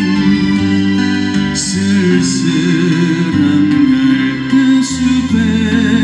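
Live music without lead vocals: an acoustic guitar played over a backing track with bass, keyboard and a few cymbal hits, through PA speakers.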